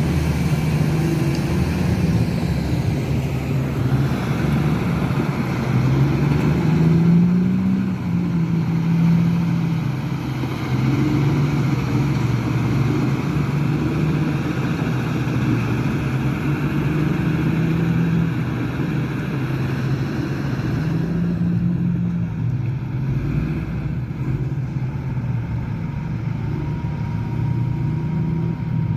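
Diesel engines of heavy mining machines, a large haul truck and a crawler bulldozer, running continuously. The engine note rises and falls several times as they work.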